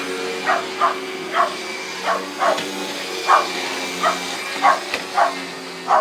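Shetland sheepdog barking repeatedly, about ten short barks at uneven intervals, over the steady hum of a running vacuum cleaner.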